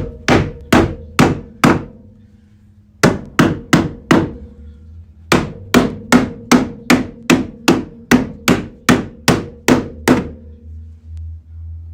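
Hammer blows on a dented car quarter panel, working the sheet metal out while it is held under pressure from behind: three runs of sharp strikes, the longest about two a second, each with a short metallic ring. A low steady hum runs underneath.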